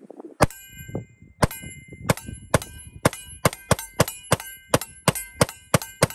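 Grand Power K100 9mm pistol firing a string of shots, each followed by the ring of a steel target being hit. The first shots come about a second apart, then speed up to about three a second.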